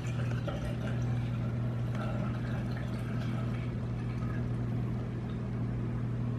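Whirlpool dishwasher running a wash cycle: a steady low hum from its pump with water swishing and spraying inside.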